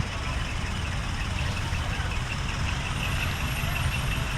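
A decorated truck's engine idling, a steady low rumble.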